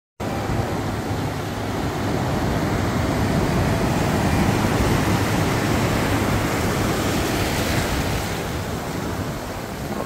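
Ocean surf breaking and washing up the shore in a steady rush of foaming water, building over the first couple of seconds and easing off near the end.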